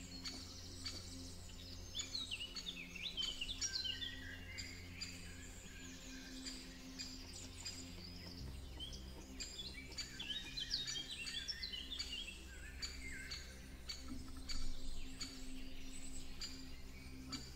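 Wild songbirds singing and calling: bursts of quick, high chirps and trills, busiest about two to four seconds in and again around ten to thirteen seconds in, over a steady low hum.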